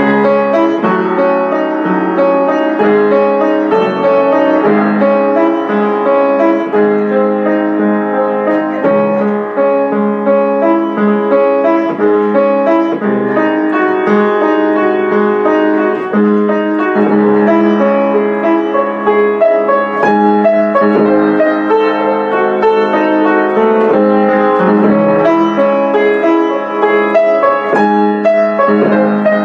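Solo piano playing a Romantic-era classical piece, with full chords over a low note that keeps sounding.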